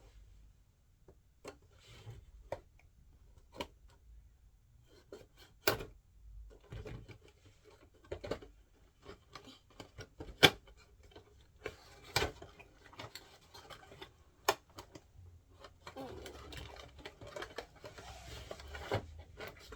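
Toy packaging being opened by hand: scattered clicks, taps and snips of plastic and cardboard, with a few sharp louder clicks. Denser crinkling of wrapping starts about three-quarters of the way through.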